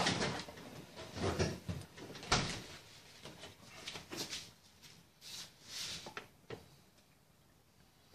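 A series of short knocks and rustles, the sharpest knock a little over two seconds in, dying away in the last second or so.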